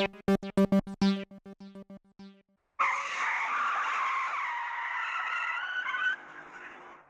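Synthesizer music playing short repeated notes, which stops about two seconds in. After a brief pause, a harsh hissing, screeching noise runs for about three seconds, then drops to a faint tail.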